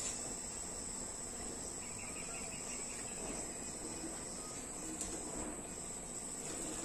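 A steady high-pitched whine like an insect's trill, with faint handling sounds from the metal airgun parts being turned over.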